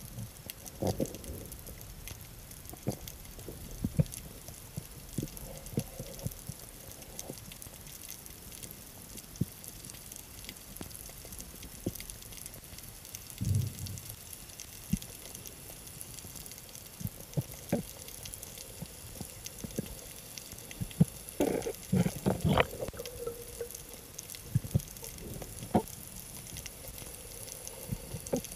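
Underwater ambience heard through a waterproof camera housing: a faint steady hiss with scattered clicks and knocks, and a cluster of louder knocks about three-quarters of the way through.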